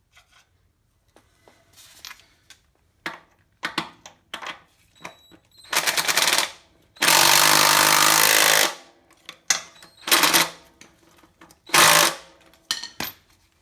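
Impact wrench hammering in several short bursts and one run of nearly two seconds in the middle, driving a nut onto a front engine mount carriage bolt until it is tight.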